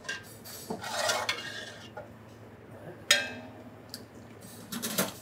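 Metal spoon and ladle stirring thick tomato sauce in stainless steel pots, scraping and clinking against the metal, with a sharp clink about three seconds in and a few quick clinks near the end.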